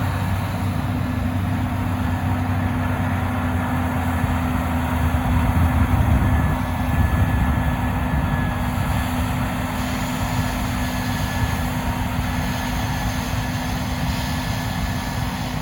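A vehicle engine running steadily with a low hum, a little louder around the middle.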